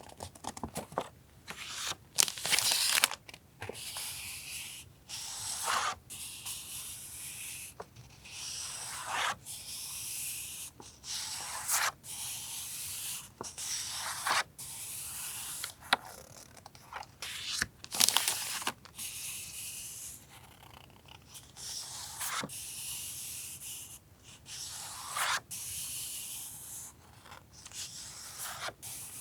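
Paper stationery being handled: repeated rustles and swishes of sheets sliding and crinkling, with sharper crackles about two to three seconds in and again around the middle.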